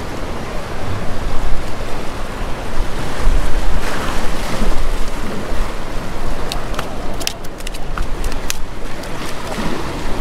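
Surf washing against a granite rock groin, with wind rumbling on the microphone. About two-thirds of the way through comes a quick run of sharp clicks and taps.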